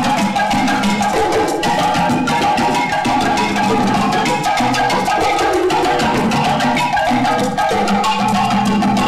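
Wooden xylophones struck with mallets, playing fast, busy music of rapid strikes and changing notes.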